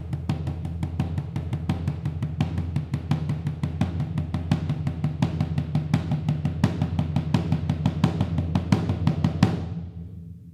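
Lefima Tambourin de Provence, the long Provençal tabor, played without its snare strainer: a fast, steady run of stick strokes over a deep, ringing drum tone. The strokes stop about nine and a half seconds in and the drum rings out.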